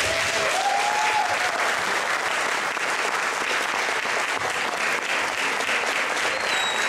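Audience applauding steadily, with a voice cheering briefly near the start and a short high whistle near the end.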